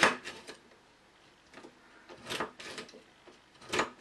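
Dexter handheld chain-stitch sewing machine clacking as it is pushed down through the fabric and lifted, three strokes with lighter clicks after each. The loudest comes right at the start.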